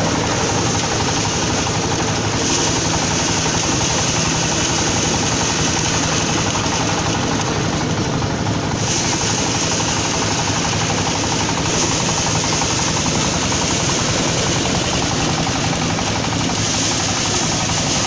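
Motor-driven paddy threshing machine running steadily under load as rice sheaves are fed into its spinning drum: a loud, constant mechanical roar with a fast, even rattle.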